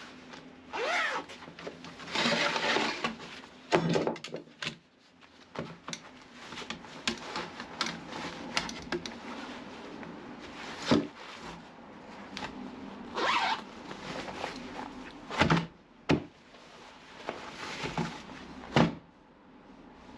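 A series of short rasping scrapes and rustles, with several sharp knocks in between, as things are handled.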